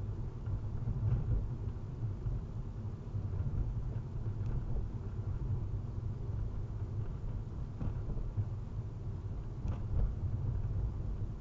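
Steady low rumble of road and engine noise heard inside a car cruising at about 25 mph, with a few faint ticks.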